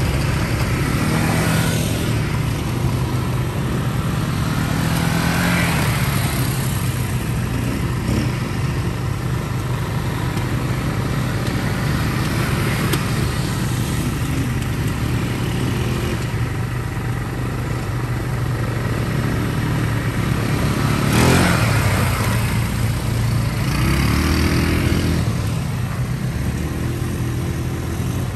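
Small ATV engine running steadily while riding, its revs rising and falling several times. A short loud burst of noise comes about three-quarters of the way through.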